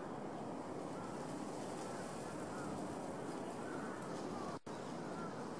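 Steady outdoor background noise with faint short chirping calls now and then; the sound cuts out for an instant about four and a half seconds in.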